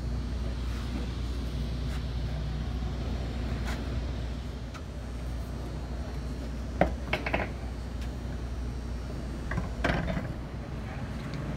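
Knocks and clatter as a monster truck transport tire and wheel are wrestled into place, two short bursts about seven and ten seconds in, over a steady low rumble.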